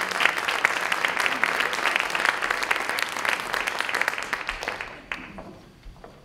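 Audience applauding, with dense clapping that dies away about five seconds in.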